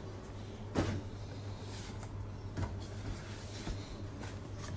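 A few soft knocks and rustles from a storage cupboard being opened, over a steady low hum.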